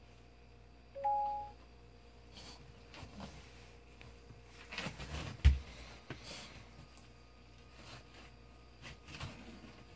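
A short electronic chime of two tones together, a smartphone's 'pōn' recording-start sound, about a second in. Later come soft rustles and a sharp thump, the loudest sound, about five and a half seconds in, with a few fainter shuffles near the end.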